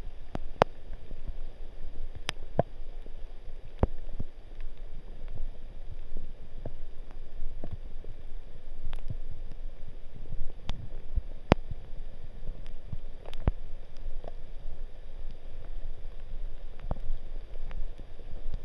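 Footsteps squelching on a wet, muddy forest trail, with scattered sharp ticks of raindrops dripping from the trees over a low rumble.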